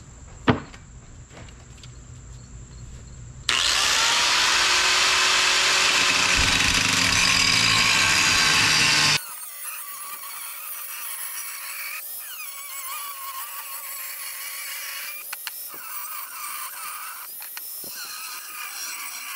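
A sharp thump about half a second in, then an electric angle grinder cutting steel angle stock. The grinding is loud and steady and starts and stops abruptly, from about three and a half to nine seconds in. After it comes a thinner, higher-pitched grinding with a steady whine.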